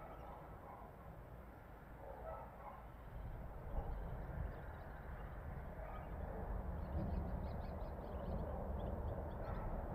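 Outdoor ambience of a low, steady rumble with birds calling over it, including a quick run of high chirps about seven seconds in.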